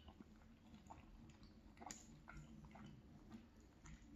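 Faint chewing of gravy-covered fries, with a few scattered soft clicks from the mouth, the clearest about two seconds in.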